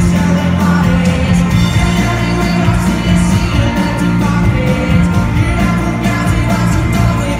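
Live rock music, loud: electric guitar and band with a male voice singing.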